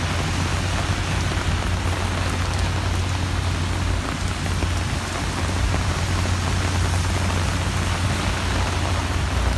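Heavy rain falling on pavement, a steady hiss, with wind buffeting the microphone as a constant low rumble underneath.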